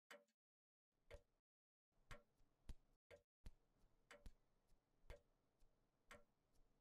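A clock ticking faintly, about once a second, with a few fainter clicks between the ticks.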